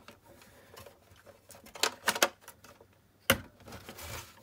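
Hands handling a toy-grade RC crawler's hard plastic body shell: a few sharp plastic clicks and knocks, the loudest about three seconds in, with a short scrape near the end.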